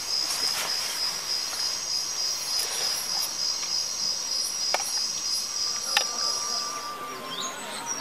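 Night insects trilling steadily at a high pitch, with a couple of faint sharp clicks. The trill stops near the end and short bird chirps start.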